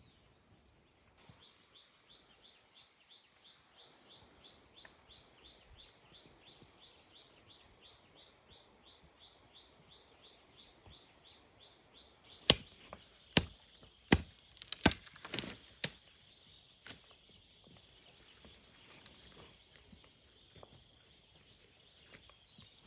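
Blade chopping: about eight sharp, loud strikes in quick succession a little past the middle. Before them a faint, high chirp repeats regularly about three times a second, and a steady high hiss runs under the strikes.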